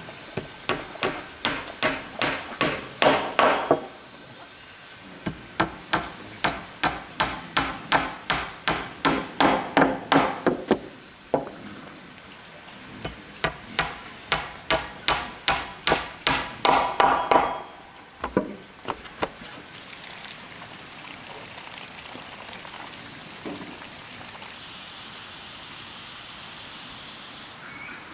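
Hammer driving nails into wood: three runs of quick strikes, about three or four a second, each run several seconds long with short pauses between. A few single knocks follow, and then the hammering stops about two thirds of the way through.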